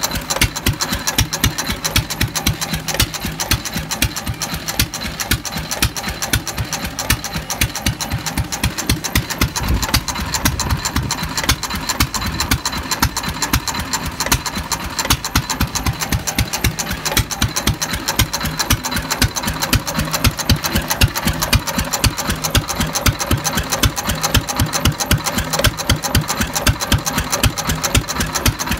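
Fairbanks-Morse Z 1½ hp single-cylinder hit-and-miss stationary engine running, an even, rapid train of sharp knocks and clatter from its firing and valve gear.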